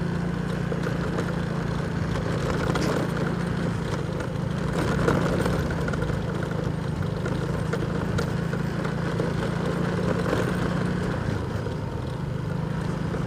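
Motorcycle engine running at a steady pace while riding a rough macadam lane. Its low note eases briefly about eleven seconds in, then picks up again.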